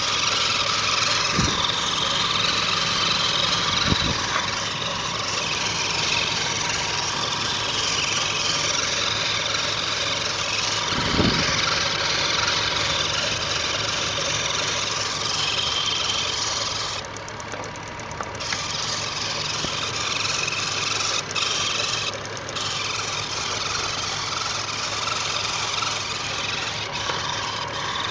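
A steadily running engine-like mechanical noise with a hissy, rushing character, broken by a few short low thuds, the loudest about eleven seconds in.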